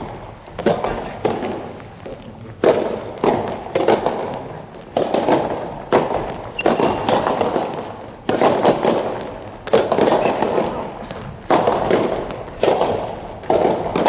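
Soft tennis rally in an indoor hall: a rapid series of sharp pops as rackets strike the soft rubber ball, each followed by a ringing echo.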